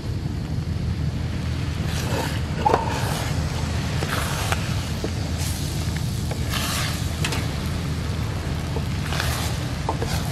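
Steady low rumble of wind buffeting the microphone, with a few short hissing swells.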